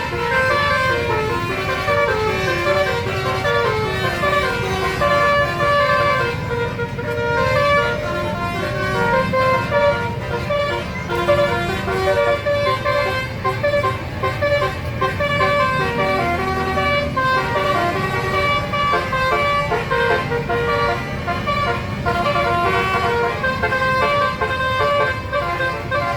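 Indonesian 'telolet basuri' multi-tone bus horn playing a tune in short stepped notes, over a continuous low rumble.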